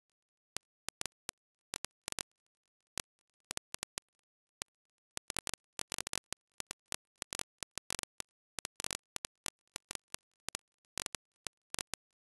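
Irregular sharp clicks and pops over dead silence, in clusters of several a second at times, with no continuous sound between them.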